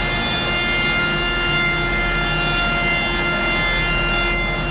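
Woodworking router cutting the bearing edge on the rim of an oak drum shell. It gives a steady high-pitched whine that holds its pitch throughout.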